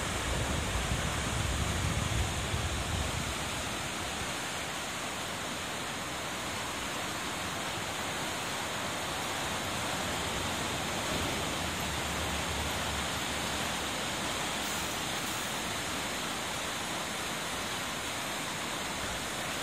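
Katsura River in flood, swollen and muddy after heavy rain, rushing past bridge piers and over a weir: a steady, even rush of water. A low rumble sits under it for the first few seconds.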